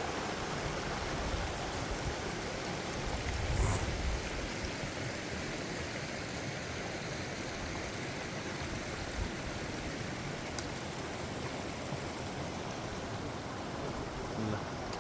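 Steady rushing of running water, with a brief low buffet about four seconds in.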